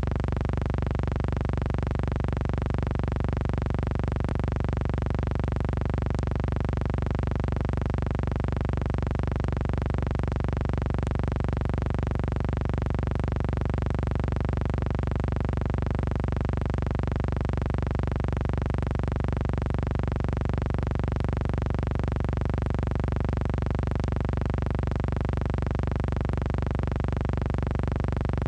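Background music: a sustained synthesizer chord with no beat.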